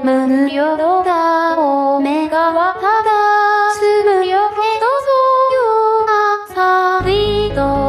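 Song with a synthesized female singing voice (UTAU vocal synth) gliding smoothly between sustained notes; a lower accompaniment joins near the end.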